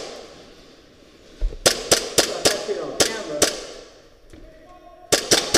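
Gas blowback airsoft guns firing: about seven sharp shots in quick succession about two seconds in, then a fast burst of four near the end.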